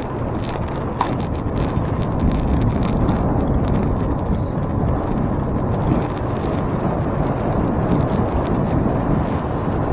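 Wind buffeting the microphone with a steady low rumble, as from riding a bicycle through traffic. A short high squeak or beep sounds about a second in.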